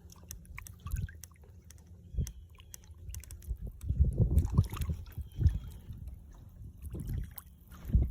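Wind buffeting the microphone in gusts, with scattered small clicks and knocks.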